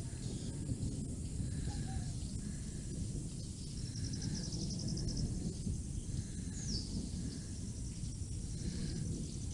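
Wind rumbling on the microphone, with a bird repeating a short call over and over and a brief high trill and falling chirp midway.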